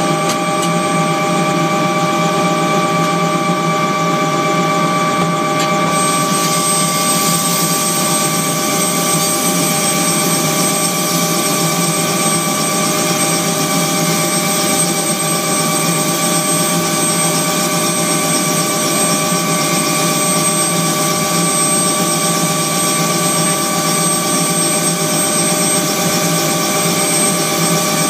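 Bell 206 JetRanger helicopter heard from inside its cabin, its Allison 250 turboshaft engine and rotor running steadily: a high thin whine over a dense drone with several steady tones.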